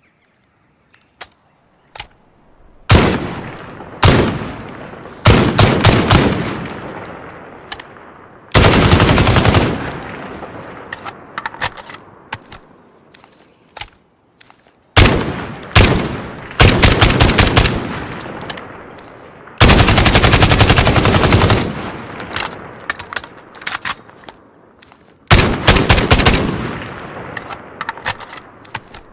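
AKS-74U carbine, 5.45×39 mm, firing: single shots and short rapid bursts alternating with longer full-auto bursts of about a second, each trailing off in a long echo. A few faint clicks come before the first shot, about three seconds in.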